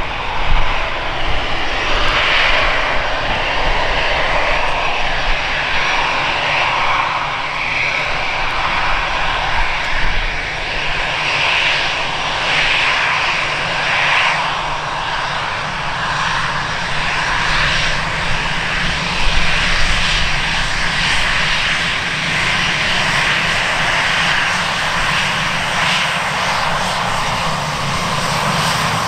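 Airliner engines running: a steady, loud rushing noise with a low rumble beneath, rising and falling slightly.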